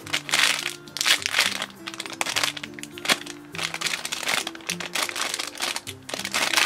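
Clear plastic bag crinkling in short, sharp bursts as it is handled and turned, over background music with a steady run of low notes.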